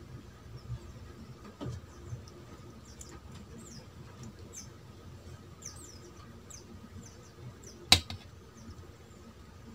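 Soft wet clicks and squelches as thick chili curry is poured from a glass bowl onto rice on a steel plate. About eight seconds in, one sharp knock as the glass bowl is set down on the table.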